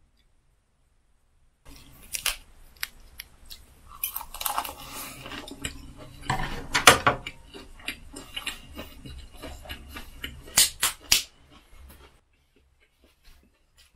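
Someone chewing a lettuce wrap of boiled pork close to the microphone: crisp crunching of the lettuce and wet chewing in uneven bursts, starting about two seconds in and dying away near the end.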